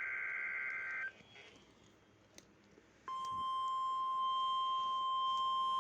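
NOAA Weather Radio alert signal: a SAME digital header burst of data tones ends about a second in. After about two quiet seconds, the steady single-pitch 1050 Hz weather radio warning alert tone starts about three seconds in and holds. The tone marks a new warning about to be read.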